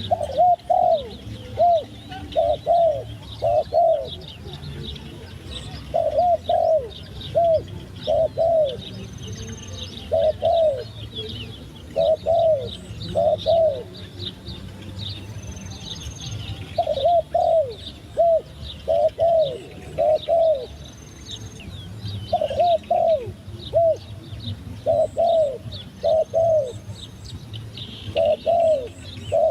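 A turtledove cooing in repeated phrases of three to five short arched coos, a phrase every couple of seconds with a few longer pauses. Small birds chirp and twitter at a much higher pitch behind it.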